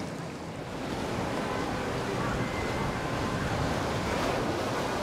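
Water rushing and splashing in the wake of a passing motor yacht, with wind buffeting the microphone; it grows louder about a second in.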